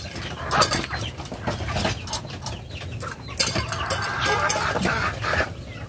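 Backyard chickens clucking, with scattered sharp knocks and clatter.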